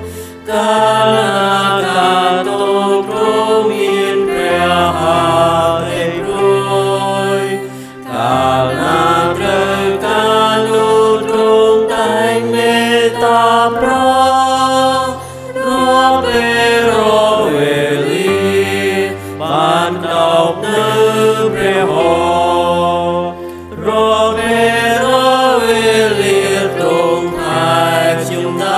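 Church choir singing a hymn in Khmer over steady instrumental accompaniment, in long phrases with a brief pause between each, about every seven or eight seconds.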